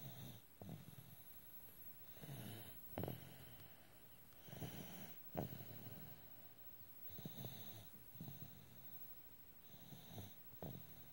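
Snoring in a slow, even rhythm, about one snore every two and a half seconds, five in all. Each snore ends in a short, sharp snort.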